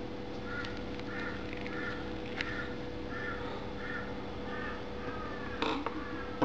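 A crow cawing over and over in an even series, about one short caw every two-thirds of a second, over a steady low hum. A short knock comes near the end.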